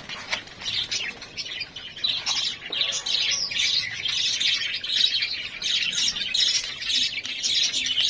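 Budgerigars chattering: many quick, overlapping chirps without a break.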